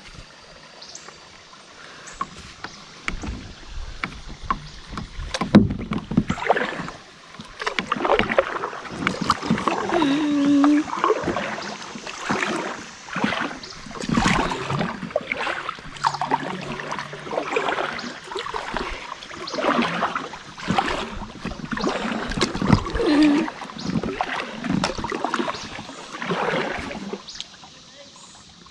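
Kayak paddle strokes dipping and splashing in the river, a repeated stroke-by-stroke swish of water. The strokes start a few seconds in and ease off near the end.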